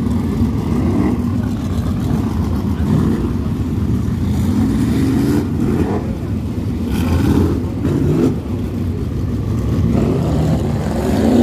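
Winged dirt sprint cars' V8 engines running as the field circles the track, with a louder stretch as two cars pass close by about halfway through.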